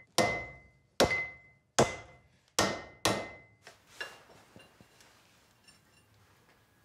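Hand hammer striking a red-hot iron bar on a blacksmith's anvil: five ringing blows, about one every 0.8 seconds, each leaving a clear metallic ring. About four seconds in there is a single lighter clink, and then only faint workshop noise.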